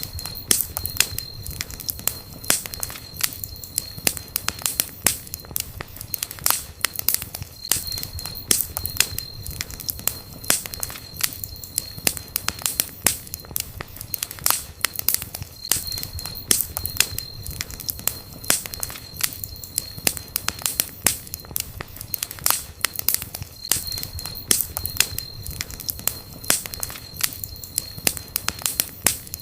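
Wood campfire crackling, with dense, irregular sharp pops and snaps. A faint high thin whine comes and goes every few seconds.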